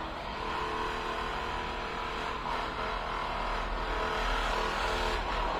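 Steady mechanical hum with a constant pitch, like a running motor.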